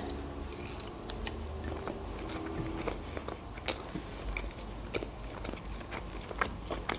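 Biting and chewing of a pan-fried chicken wing, with scattered small wet clicks and crackles.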